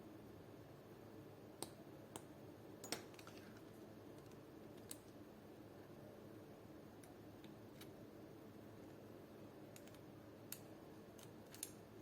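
Near silence with a few faint, scattered clicks of small plastic and metal parts being handled while an airsoft AK's hop-up chamber is taken apart.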